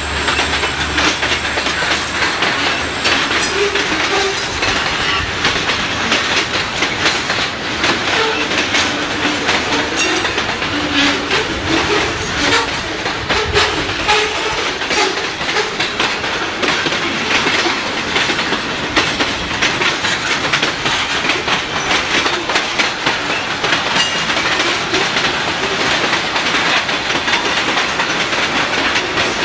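Freight train cars, covered hoppers and boxcars, rolling past loudly and steadily, their wheels clicking rapidly over the rail joints.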